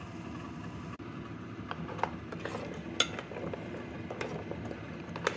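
A spoon stirring blended red-date liquid with chunks of palm sugar in a metal pot to break up and dissolve the sugar, with a few sharp clinks of the spoon against the pot, the loudest about three seconds in.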